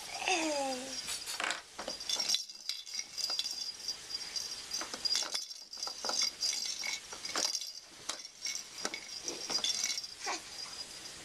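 Hard plastic baby toys clicking and rattling as a baby mouths and bats at them, including a clear bead-filled rattle ball. There is a short falling baby vocalization in the first second.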